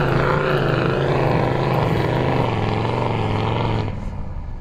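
Heavily modified Toyota LandCruiser 79 series engine running hard under load while climbing a steep soft sand dune with the wheels spinning. About four seconds in the engine note drops away sharply as the vehicle bogs down short of the crest.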